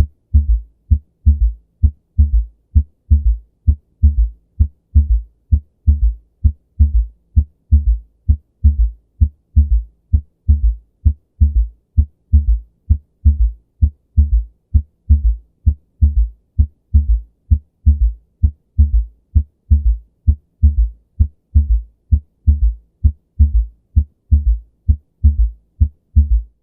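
Heart sounds heard through a stethoscope: a steady, repeating rhythm of low thuds, the lub-dub of S1 and S2 followed by a low third heart sound (S3 gallop) early in diastole. An S3 is normal in children, young adults, athletes and pregnancy, but in older adults it may signify heart failure or cardiomyopathy.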